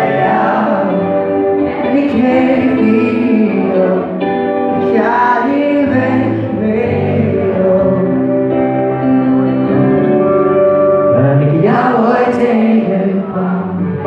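Live pop-rock band performing: singing over electric guitars and bass.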